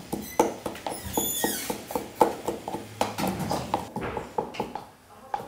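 Wooden pestle pounding in a wooden mortar: a quick, regular run of knocks, a few a second, with a short falling squeak about a second in.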